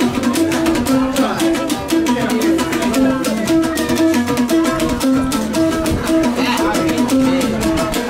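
A gourd-bodied plucked string lute playing a short repeating melodic riff over a quick, steady rattling beat.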